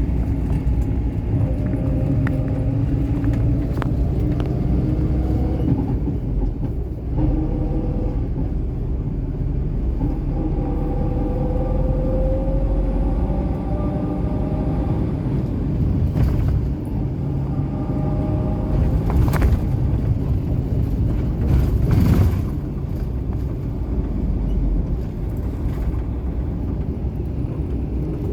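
A car's engine and road rumble heard from inside the moving car, the engine note rising and falling gently as the car speeds up and slows, with a few short knocks.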